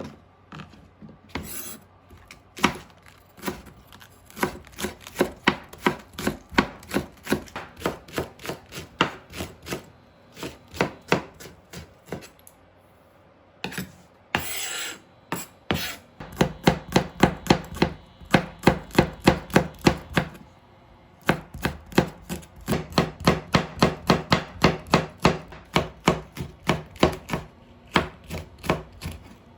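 Kitchen knife chopping food on a cutting board in quick, even strokes, about three a second, with a short break and a longer scraping sound about halfway through.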